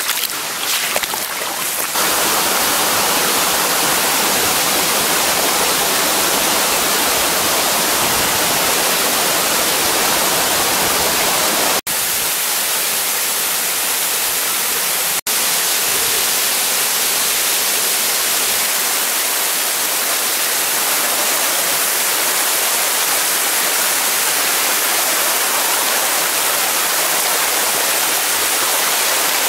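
Water rushing and splashing over rocks in a rainforest stream and small waterfall: a loud, steady rush that cuts out for an instant twice near the middle.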